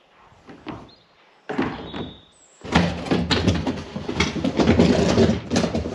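Plastic Tipsy feed bin being tipped over and shifted on a wooden trailer deck: a few hollow knocks, then about two seconds in a continuous run of thuds, clatter and scraping.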